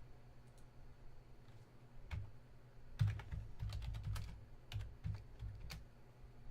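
Typing on a computer keyboard: a single keystroke about two seconds in, then a quick run of key clicks lasting about three seconds.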